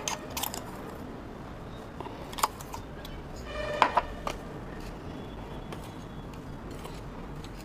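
A steel spoon handled against a plate as spice powder is stirred into cut raw mango: a few light clicks and one short ringing clink just under four seconds in, over a low steady room hum.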